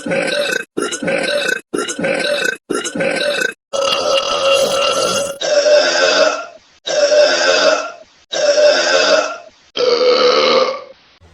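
A run of nine loud burps in a row: four short ones that cut off sharply, one longer one, then four more of about a second each that sound alike.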